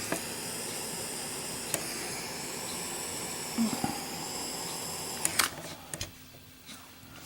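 Steady hiss of a gas lighter's flame while candles are lit, ending with a click about five and a half seconds in, followed by a few soft clicks and taps.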